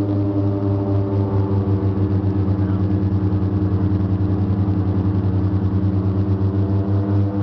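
Let L-410 Turbolet's twin turboprop engines at take-off power, heard from inside the cockpit: a loud, steady propeller drone with a deep hum. Through the middle it takes on a fast, even throb.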